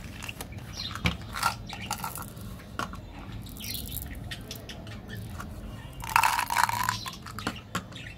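Sugar-coated chocolate buttons clicking and rattling as a small plastic candy bottle is handled and opened and the candies are tipped into a hand. About six seconds in, a louder rattle of about a second as the candies pour into a small jar.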